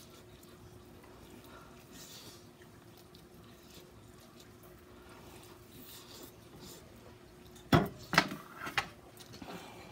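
Faint eating sounds of a woman chewing a very spicy sauced chicken leg, over a low steady hum. About eight seconds in come three loud, short bursts of breath from her, a reaction to the chilli heat.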